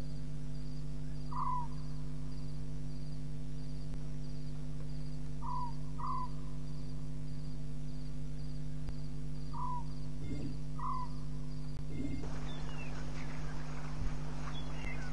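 Short, sharp animal calls, about seven of them, some in quick pairs, over a steady electrical hum in the waterhole camera's audio. From about twelve seconds in, a rustling noise rises with a few louder knocks.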